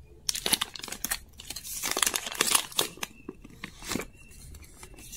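A clear plastic protective sleeve being peeled and slid off a new smartphone, crinkling and crackling irregularly; the crackling dies down about four seconds in.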